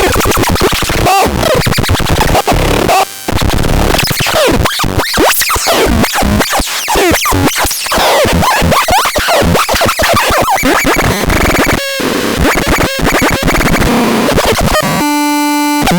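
MEXADEX 2 electronic sound device putting out harsh, glitchy noise with fast sweeping pitches and stuttering cut-outs. About a second before the end it settles into a steady buzzy tone.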